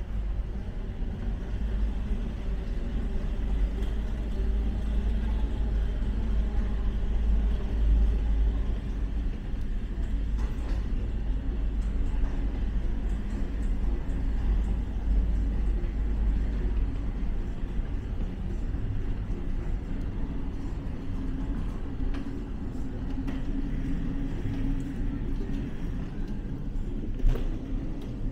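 Steady low rumble of a moving airport walkway, with one sharp knock near the end.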